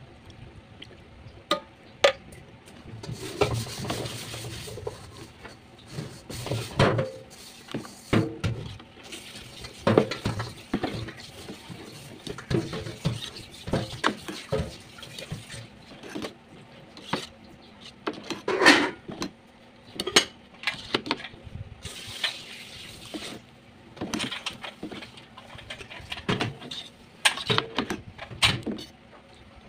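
Wooden spatula stirring thick tomato spaghetti sauce in a pot, knocking and scraping against the pot in irregular strokes, with some liquid sloshing.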